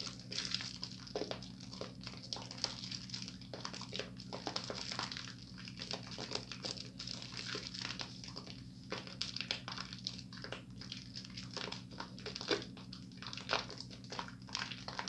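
Wet, squishy squelching of a soap bar and thick foam being rubbed between hands, in quick irregular strokes over a steady low hum.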